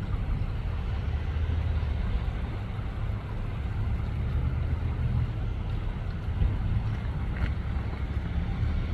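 Steady low rumbling noise, with a faint brief click about seven and a half seconds in.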